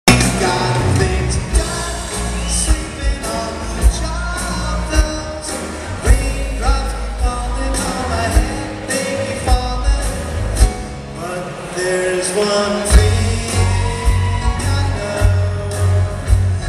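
Live piano-rock trio playing a ballad: grand piano, drum kit and bass guitar, with a male voice singing. Heard from the audience at a concert.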